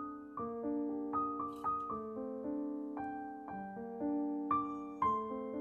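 Background piano music: a gentle melody of struck notes that ring on, about two notes a second.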